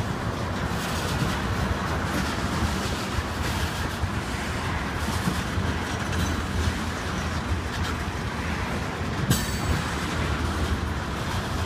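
Oil-train tank cars rolling past at steady speed: a continuous rumble of steel wheels on rail, broken by irregular clickety-clack as wheels cross rail joints, with one sharper click a little after nine seconds in.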